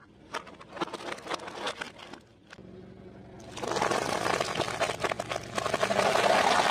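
A car tyre rolling over and crushing objects: first a run of sharp plastic cracks, then, from about halfway, a louder dense crinkling crunch as an aluminium foil tray of food is flattened under the tyre.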